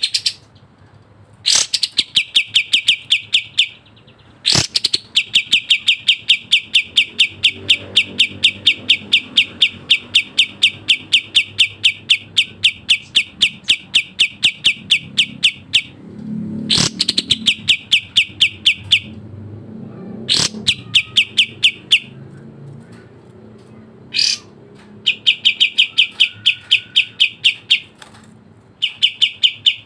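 Kapas tembak bird singing long, fast trills of rapidly repeated high notes, in several runs broken by short pauses.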